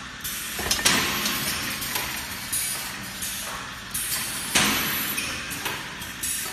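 Automatic brick force wire mesh welding machine running: irregular metallic clanks and short bursts of hiss over a steady mechanical rumble.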